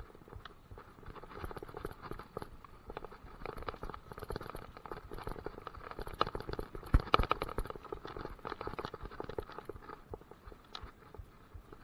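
Mountain bike clattering and rattling over a rough dirt trail, heard close up from the handlebars: a dense run of irregular knocks and jolts, the hardest about seven seconds in.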